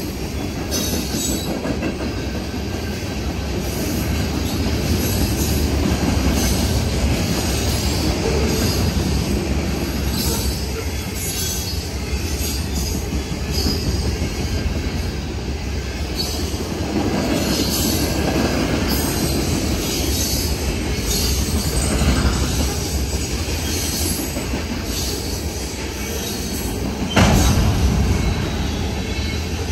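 Freight cars of a Norfolk Southern manifest train rolling past close by: a steady rumble of steel wheels on rail with repeated clacking and short high-pitched wheel squeals. A single louder clank comes near the end.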